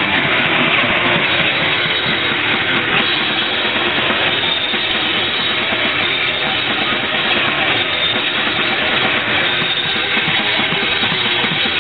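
Crust punk band playing live at full volume: distorted guitars, bass and drums blurred into a dense, steady wall of sound. It is heavily distorted and muffled, as picked up by a photo camera's built-in microphone.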